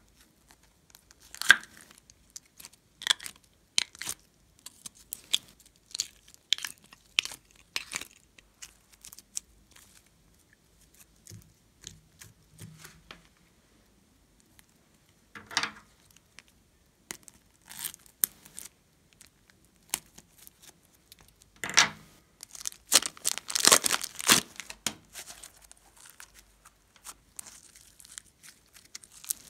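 Plastic crinkling and crackling, with scattered sticky clicks, as a slime squeeze container and a plastic piping bag of clay are handled and squeezed. The sounds come in irregular clusters, densest and loudest a little past two-thirds of the way through.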